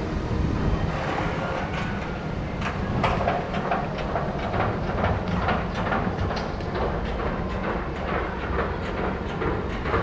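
Water rushing and splashing in a rapids-ride channel, with a rapid patter of small splashes from about three seconds in, over a steady low rumble of wind on the microphone.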